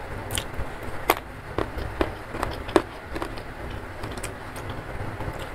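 Close-miked chewing: a string of short wet crunches and mouth clicks, roughly twice a second, the loudest about a second in and near three seconds. A steady rain hiss runs under it.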